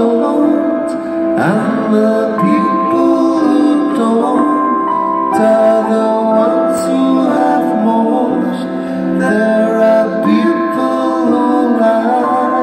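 A rock band playing live: electric guitars, keyboards and drums with long held chords.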